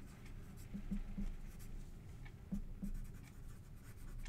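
Dry-erase marker writing on a whiteboard in short, quick strokes as letters are formed, over a low steady hum.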